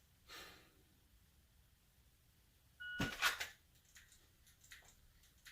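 A shot timer's short electronic start beep about three seconds in, cut into at once by the clatter of a Glock 34 pistol drawn fast from its holster. Then a quick string of light clicks from dry-fire trigger presses.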